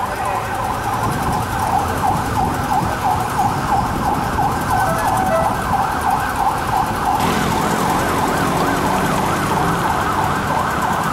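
Police motorcycle escort siren sounding a fast, repeating up-and-down yelp, with low engine rumble from the convoy joining in the last few seconds.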